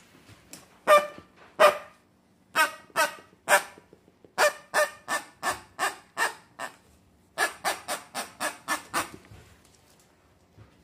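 Plush turkey toy's noisemaker honking, a string of short squeaky honks in three quick runs.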